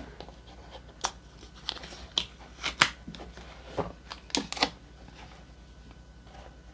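Box and packaging being opened and handled: a run of sharp clicks and short rustles over the first few seconds, then only faint handling.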